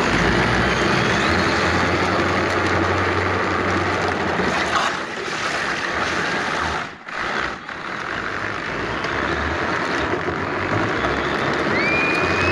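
Steady rushing wind noise buffeting the microphone, easing briefly about seven seconds in. Near the end a high whine rises and then holds as the Power Wheels Dune Racer's brushless electric motors speed up.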